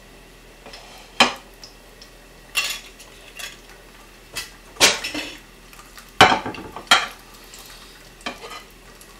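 Ceramic plates knocking and clattering against each other and the countertop as they are handled and set down, about eight sharp knocks, the loudest about five and six seconds in.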